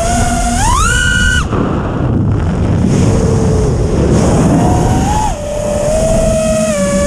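6S FPV quadcopter's brushless motors on T-Motor props, heard through the onboard camera. The whine climbs sharply in pitch about a second in as the throttle is punched. It then falls away to a rush of air for a few seconds before a steady motor whine returns near the end.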